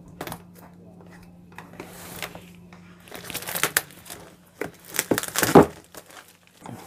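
Plastic shrink-wrap on a cardboard box crinkling and tearing as a utility knife cuts it and hands pull at it, with a few light knocks of the box. It comes in two spells of rustling, the louder one near the end.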